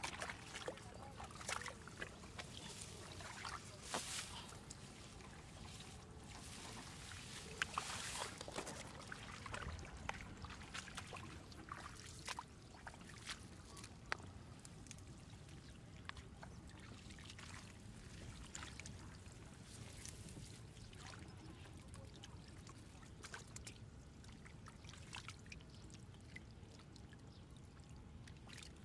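Bare hands groping and splashing through shallow muddy water and wet mud: irregular small splashes, drips and squelches, busier in the first half and quieter later.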